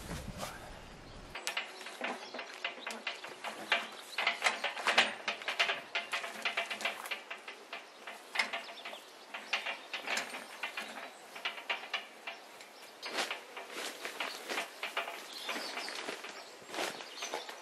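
Portable cement mixer being wheeled over rough grass: its metal drum and stand rattle and clank in a dense, irregular run of knocks.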